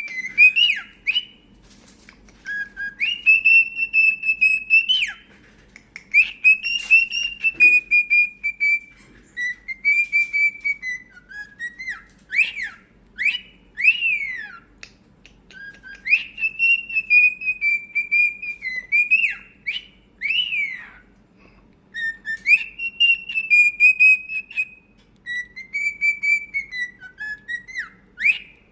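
Cockatiel whistling a learned tune: clear long held notes and quick up-and-down swooping notes, the same phrase repeated several times with short pauses between.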